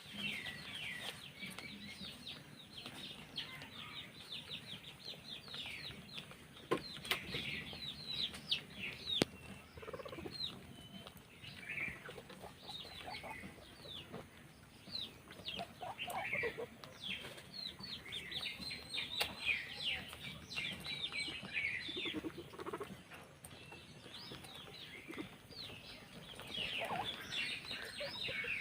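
Many guinea pigs squeaking and chirping together, a dense chatter of short high calls that overlap throughout.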